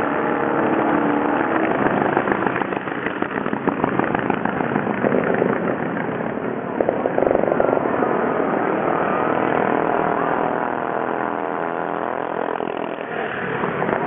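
Several antique boardtrack-style racing motorcycles running hard around a dirt oval, their engines overlapping. Near the end the engine notes rise and fall in pitch as bikes go by.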